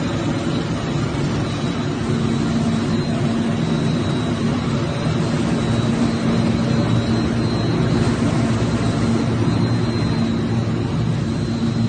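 Factory machinery running steadily: a loud, continuous drone with a constant low hum and a faint high whine.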